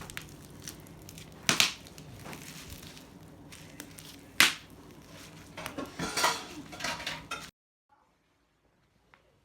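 Bubble wrap being crinkled and squeezed, with single sharp pops about a second and a half in and again a few seconds later, then a quick run of pops. The sound cuts off abruptly to near silence about two seconds before the end.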